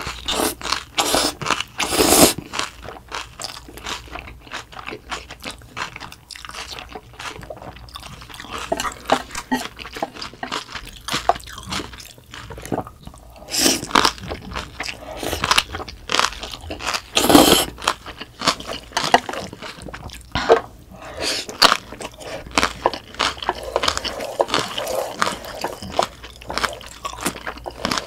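Close-miked eating of spicy bibim noodles with kimchi: noodles slurped in with chopsticks and steady wet, crunchy chewing, with a few louder slurps spread through.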